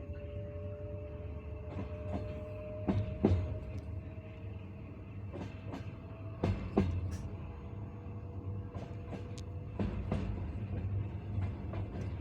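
Passenger coach wheels clacking over the rail joints of jointed track, with a sharp double knock about every three seconds over the steady rumble of the moving train and a faint steady hum.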